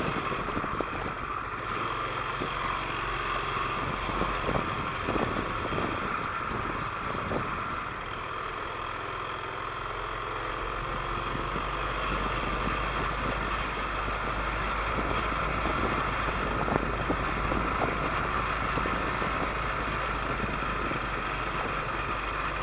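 A vehicle's engine running steadily under travel noise, with a few short knocks.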